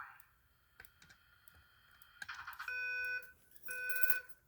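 Simplex speaker strobe on a voice evacuation system sounding its alarm tone: a steady, multi-pitched tone in half-second pulses about a second apart, twice in the second half, the rhythm of a temporal-three evacuation signal.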